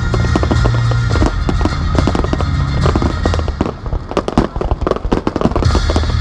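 A rapid-fire fireworks barrage (star mine): many shells launching and bursting in quick succession with dense crackling. It plays over music with a steady bass line that fades out for about two seconds in the middle, leaving only the bangs and crackle, and comes back near the end.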